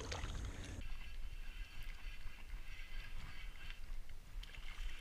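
Low wind rumble on the microphone that drops away suddenly about a second in. After it comes a faint whirring with small ticks from a spinning reel being cranked to bring in a hooked fish.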